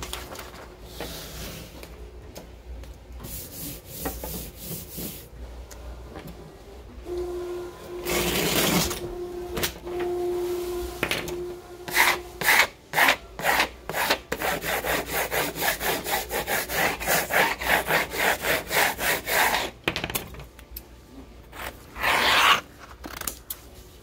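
Paper transfer tape being rubbed down by hand over a vinyl decal on a wooden tabletop, burnishing it so the vinyl lifts off its backing. Scattered rough swipes give way, from about halfway through, to quick rhythmic rubbing strokes, about two or three a second, for several seconds, with one more loud swipe near the end.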